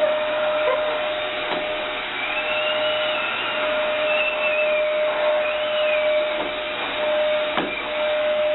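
Vacuum cleaner running: a steady motor whine over a rush of air, with a fainter higher tone rising and falling a few times. Two short knocks, one early and one near the end.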